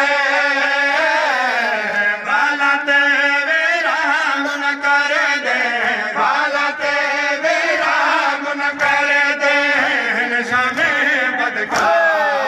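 Men chanting a Seraiki noha in chorus, a slow lament with long held lines. Dull low thumps come roughly once a second under the voices: chest-beating (matam) keeping time.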